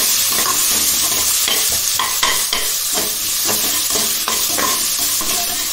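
Chopped onions sizzling in hot oil in an aluminium pressure cooker, stirred with a perforated steel ladle that scrapes and taps against the pan many times over.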